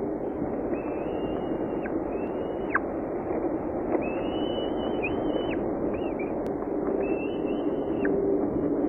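Falcon chick's thin, high begging calls during a feeding: about five drawn-out whistles, each ending in a quick downward drop, over a steady hiss of microphone noise.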